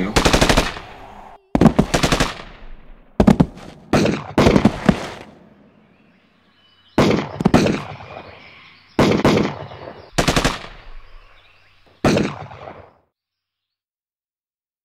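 Machine-gun fire in about ten short bursts, each made of rapid shots that trail off in an echo. The firing stops about thirteen seconds in.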